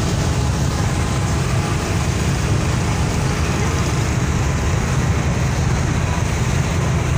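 Passenger boat's engine running steadily, a loud, even low drone.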